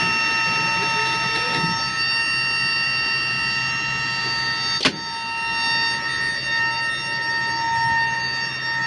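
Steady, high-pitched machinery whine from a parked Airbus A320, several fixed tones over a low hum, with one sharp click about five seconds in.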